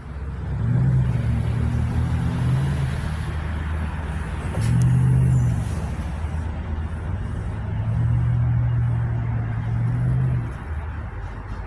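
SEPTA Silverliner IV electric commuter train moving off along the track: a loud low hum that holds steady notes, swelling and shifting pitch a few times, over a rumble.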